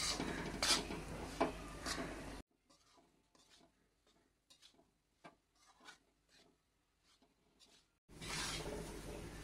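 A spatula scraping and stirring wheat flour roasting in ghee in a kadhai, with a few knocks of the spatula against the pan in the first two seconds. The sound drops out to near silence for about five and a half seconds in the middle, then the stirring resumes near the end.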